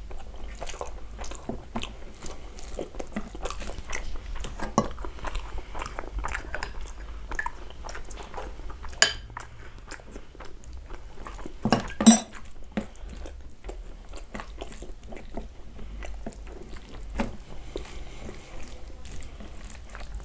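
Close-up eating sounds: cooked rice being mixed by hand with curry gravy on a paper plate and chewed, with a steady run of small wet clicks. A metal spoon scooping gravy from a glass bowl clinks a couple of times near the middle.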